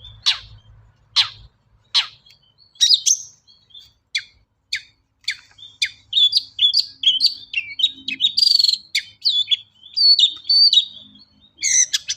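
Long-tailed shrike (cendet) singing: a series of sharp, falling calls a little under a second apart, then a fast, varied run of chirps and trills with a buzzy phrase in the middle, the mix of its own calls and phrases borrowed from other birds.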